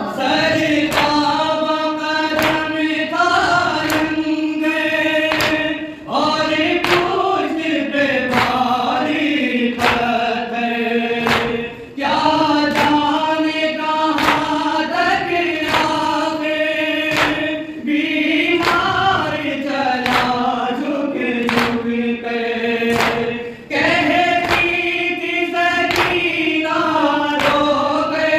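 Male voices chanting an Urdu nauha, a Shia lament, in unison in long sung phrases of about six seconds each. Rhythmic matam, open hands beating on chests, keeps time at about two strikes a second.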